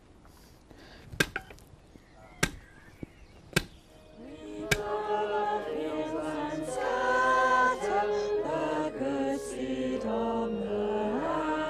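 Four hard strikes of a long-handled digging tool driven into the ground, a little over a second apart. Choral music with held notes then fades in and carries on.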